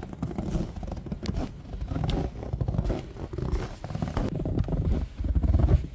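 Boots crunching through fresh, dry snow in steady walking footsteps, about one step a second.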